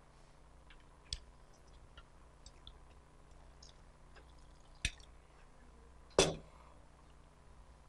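Faint pouring of warm water from a stainless thermos jug into a blender jar, with a few light clicks, then a single knock about six seconds in as the metal jug is set down on the counter.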